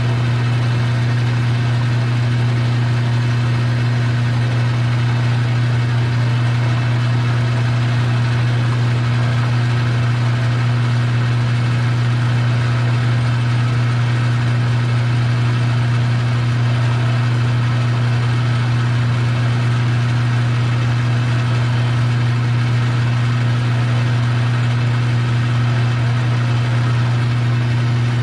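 Metal lathe running at a steady speed, its motor giving an even, unchanging hum.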